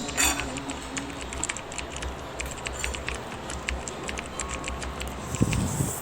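Irregular light clicks and taps over a steady low hum, with a louder knock near the end.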